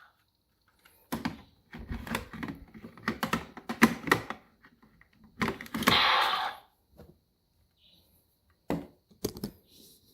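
Plastic clicks and clacks of a DX Cyclone Riser toy transformation belt being handled, its parts snapped and pressed, with a short noisy burst about halfway through.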